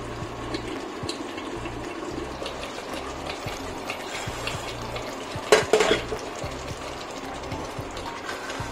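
Spinach-and-meat curry simmering in a steel pot, with small knocks from a wooden spoon stirring it and a loud metal clatter about five and a half seconds in.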